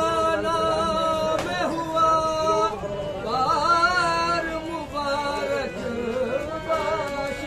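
A man singing a devotional melody with long held notes that waver and glide, accompanied by a harmonium.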